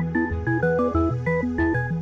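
Background music: a quick plucked-string melody, notes changing several times a second, over a steady bass line.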